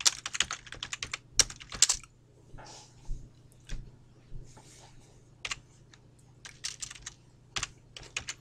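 Bursts of rapid, sharp clicking, densest in the first two seconds and then scattered, over a faint steady low hum.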